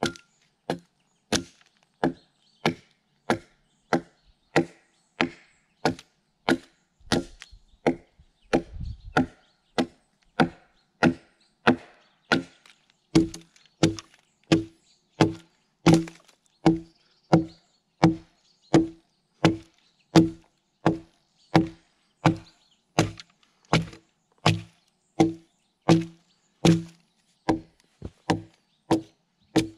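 Steady, evenly paced axe blows into the split face of a log, about three strokes every two seconds, each a sharp chop with a short woody ring: hewing the face flat.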